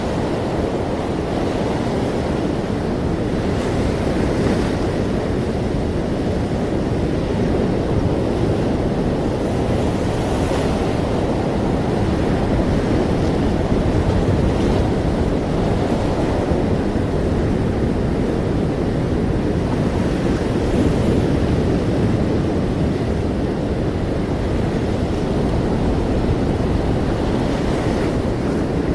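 Ocean waves breaking and washing on a shore: a continuous deep rushing surf with gentle swells every few seconds.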